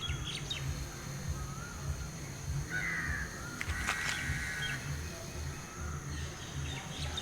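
A crow cawing twice, two harsh calls about three and four seconds in, with faint chirps of other birds and a steady low rumble underneath.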